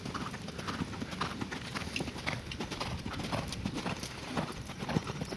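Hoofbeats of a horse cantering on arena sand: a steady run of soft footfalls.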